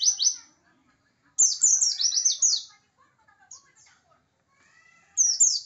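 A pet white-eye (pleci) singing in fast phrases of high, sharply falling whistled notes. Each phrase lasts a little over a second, with a pause of a few seconds between phrases and a brief faint note in the gap.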